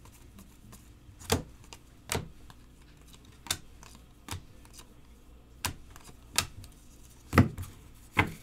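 Stiff chrome baseball trading cards being flipped through one at a time by hand. Each card gives a sharp click or snap, about eight in all at roughly one a second.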